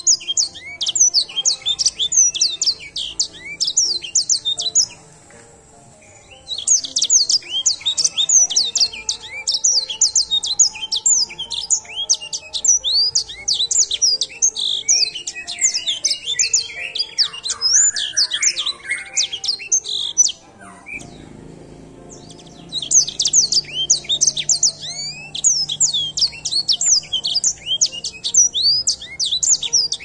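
Edel sanger songbird singing a fast, high-pitched song of rapid chirps and trills, with lower warbled notes about halfway through. The song breaks off briefly about five seconds in and again about two-thirds of the way through.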